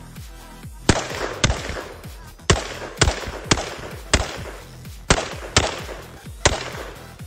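Semi-automatic TG2 carbine in .366 TKM firing about nine rapid shots, several in quick pairs about half a second apart. Electronic background music plays under the gunfire.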